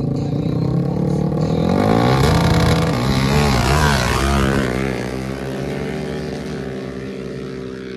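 Two sport ATV engines revving at the start line, then accelerating hard off the launch, the pitch climbing and swinging as they pass close by at full throttle. The engine sound then settles lower and fades as the quads pull away down the drag strip.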